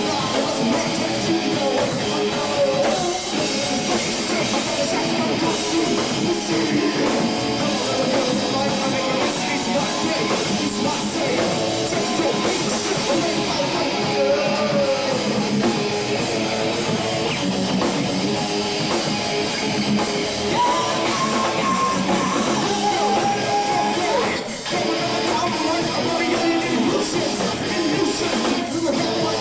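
Heavy metal band playing: electric guitars and drum kit keep up a dense, steady wall of sound, with a guitar line sliding and bending in pitch about two-thirds of the way through.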